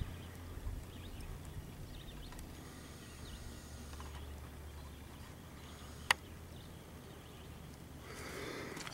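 Quiet outdoor ambience: a steady low rumble with faint, scattered bird chirps, and a single sharp click about six seconds in.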